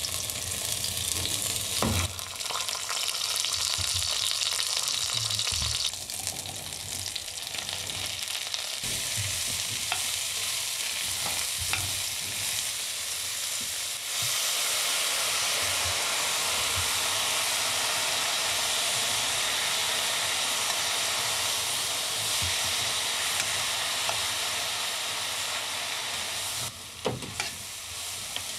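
Chopped vegetables and roe deer shanks sizzling in hot oil in a pan, with a few clicks of a utensil stirring against the pan. The sizzle grows louder and steadier about halfway through.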